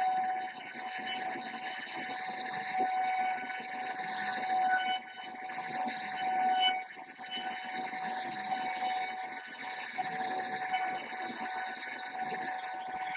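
CNC router spindle whining steadily while carving wood, a constant high tone over rough cutting noise that swells and dips as the bit moves through the wood.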